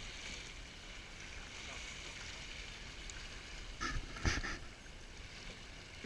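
Fast river current rushing over a riffle in a steady hiss, with a brief sharp knock or clatter about four seconds in.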